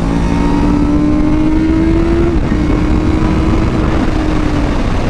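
A 1990s superbike engine at high revs, heard from onboard with wind rushing over the camera. The pitch climbs slowly, drops a step about two and a half seconds in, then eases gradually lower.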